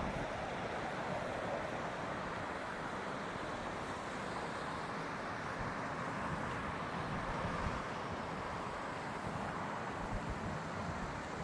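Steady outdoor background noise: a continuous, even rushing sound with no distinct events, the mix of distant traffic and breeze that fills an open waterside area.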